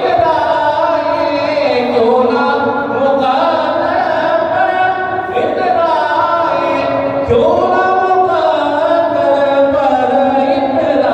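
A man's voice singing a devotional Urdu kalaam into a microphone, without instruments, in long drawn-out notes that slide up and down in pitch.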